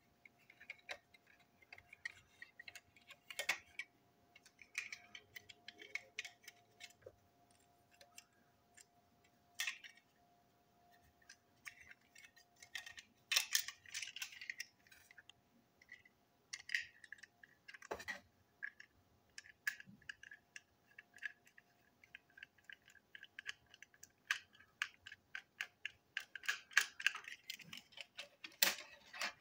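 Scattered small clicks, taps and light scrapes of a plastic toy truck and its small screws being handled and screwed back together on a tabletop, coming in irregular bunches with short gaps between.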